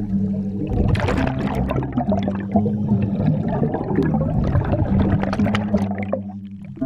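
Scuba diver's exhaled bubbles crackling and gurgling up past the microphone from about a second in until near the end, over background music with sustained low notes.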